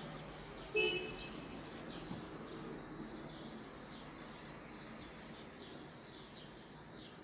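Small birds chirping over and over in quick, short high notes, with one brief, louder high-pitched sound about a second in.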